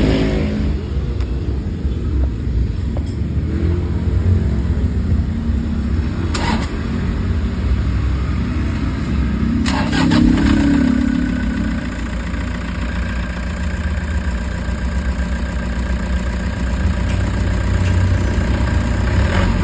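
Toyota HiAce engine running on test after the alternator and belt idler pulleys, fitted with new bearings, were put back, with a rise in engine sound about ten seconds in. Two sharp clicks come partway through, and from about twelve seconds a steady whine joins the engine note.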